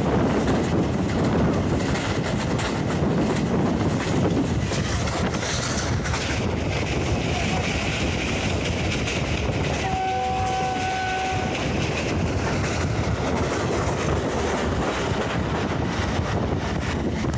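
Passenger train running, heard from the open side of a coach: steady running noise of the wheels on the track mixed with wind on the microphone. About ten seconds in, the locomotive's horn sounds once, a chord of steady tones lasting about a second and a half.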